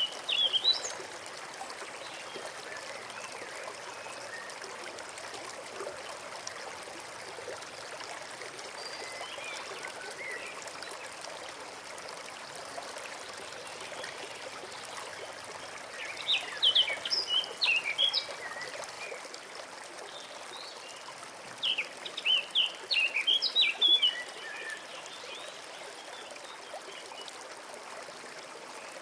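A forest stream flowing and trickling steadily, with a songbird singing short phrases of quick high chirps three times: at the very start, about sixteen seconds in, and again about twenty-two seconds in.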